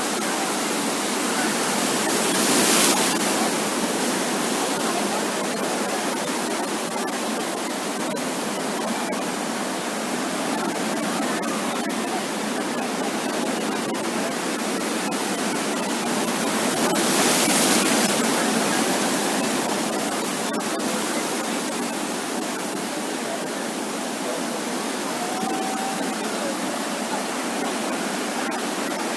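Sea waves washing onto a beach: a steady rush of surf that swells with a louder breaking wave about three seconds in and again just past halfway.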